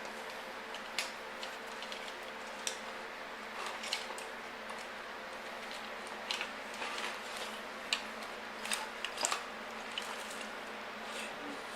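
Light, irregular clicks and rustles of a car wiring harness being handled, its wires and plastic connectors knocking together as they are sorted and tagged.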